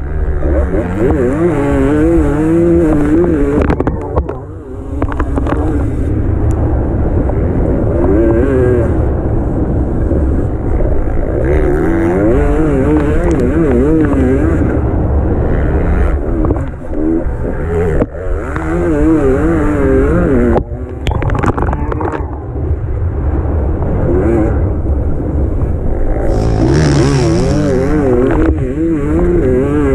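Enduro dirt bike engine at full race effort, its pitch climbing and falling constantly as the throttle is worked and gears change. The power briefly drops off a few times, around five seconds in and again near the middle, before picking straight back up.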